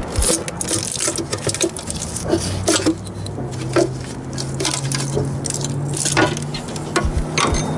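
Hand-tool work on an Audi 2.0L engine: scattered ratchet clicks, metal knocks and scrapes as the timing chain cover is worked loose and lifted off. A steady low hum comes in about three seconds in.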